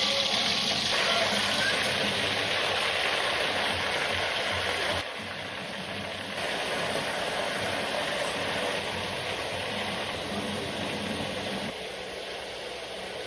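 Pork chops frying in hot oil in a pan: a steady sizzle that drops briefly about five seconds in, then carries on.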